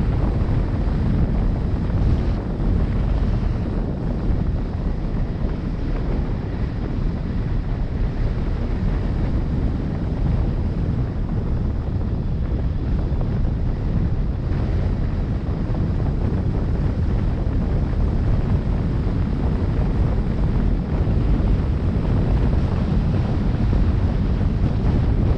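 Wind buffeting the microphone: a steady low rumble with no breaks.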